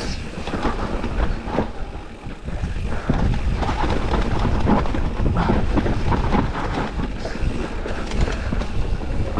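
Specialized Turbo Levo electric mountain bike running fast down a rough dirt trail: a steady rumble of tyres over the ground, full of quick knocks and rattles as the bike hits bumps.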